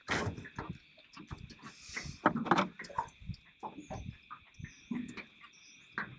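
Scattered knocks and taps as a freshly caught trout is handled and unhooked over the side of an aluminium boat. A steady high chirring of insects runs underneath, with a few short high chirps in the second half.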